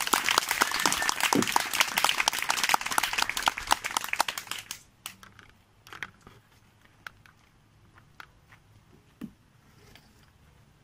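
Audience applauding for about five seconds, then stopping fairly abruptly, followed by a few scattered single claps and knocks.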